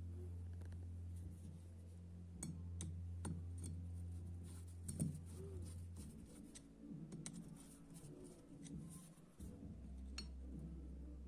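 Light scattered clicks and clinks of small metal parts of an LPG gas reducer being handled and fitted, over a steady low hum that stops about six seconds in and comes back near the end.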